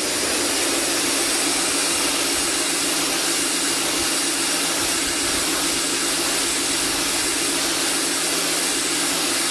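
WHOLESUN 3000 PSI electric pressure washer running, its pump giving a steady hum under the loud, even hiss of a 15-degree fan jet of water hitting concrete.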